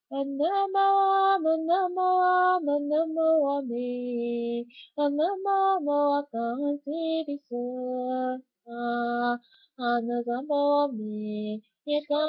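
A woman singing a hymn solo and unaccompanied, one voice holding sustained notes in short phrases with brief pauses for breath.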